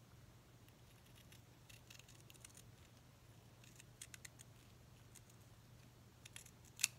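Scissors cutting thin tissue-box cardboard: a few faint scattered snips, with one sharper snip near the end, over a low steady room hum.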